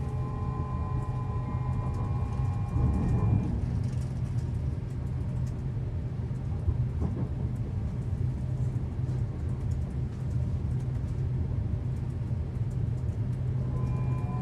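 Interior of a Hitachi AT300 electric multiple-unit train running along the line: a steady low rumble, with a whine of several steady tones that stops about three seconds in and comes back near the end.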